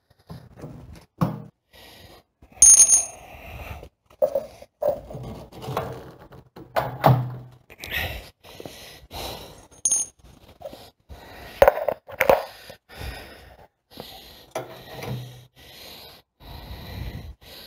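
Metal parts being fitted by hand to a portable generator's steel frame: a string of irregular clinks, clicks and knocks as pins and clips go into the handle and wheel brackets, with two sharp metallic pings, near 3 s and again near 10 s.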